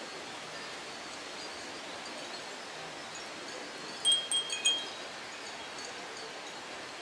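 Japanese fūrin wind bells tinkling: a quick cluster of about four short, high rings a little past the middle, over a steady faint outdoor hiss.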